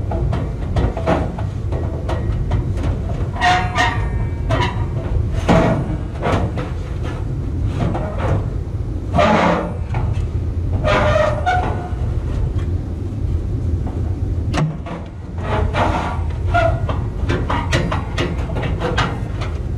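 Sheet-metal zone damper and ductwork clanking, scraping and rattling as they are worked by hand, with irregular knocks and short metallic scrapes over a steady low hum.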